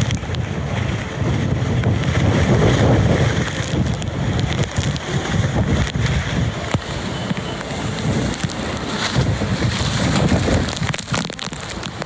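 Strong typhoon wind buffeting the microphone: a loud, steady rumble of wind noise that surges and eases with the gusts.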